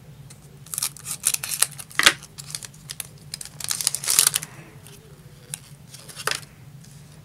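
Scissors snipping open a shiny foil trading-card booster pack, with sharp cutting clicks in the first two seconds. The wrapper crinkles around four seconds in as the cards are pulled out and handled, and a couple of light clicks follow near the end.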